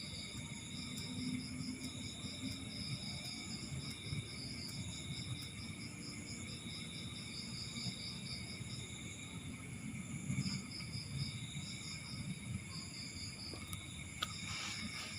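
Insects chirping in rapid high trills that start and stop in uneven runs, over a steady high-pitched ringing and a low background rumble, with a few faint clicks near the end.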